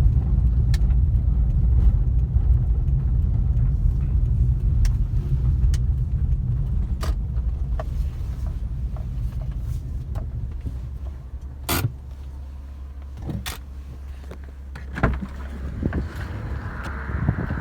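Car engine and road rumble heard from inside the cabin, fading as the car slows and pulls over to stop, then a quieter idle. Several sharp clicks and knocks come in the second half, with more handling noise near the end.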